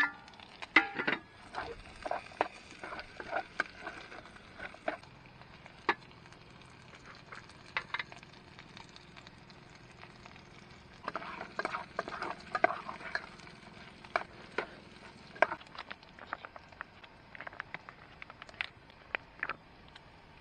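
Metal spoon stirring and tapping against a small camping pot of frying meat and vegetables, making irregular clinks and scrapes over a faint sizzle.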